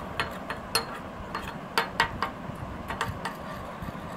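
Metal spoon stirring a thick paste in a small glass bowl, clinking against the glass in quick, irregular ticks, about three a second.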